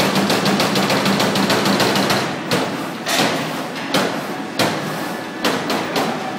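Motorum 2044 CNC punch press punching sheet metal. For about two seconds it fires a rapid run of strokes over a steady hum, then it switches to single punches spaced about half a second to a second apart.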